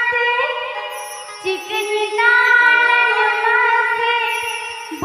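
A female singer performing a Santali song live with a band's keyboard accompaniment, notes held long.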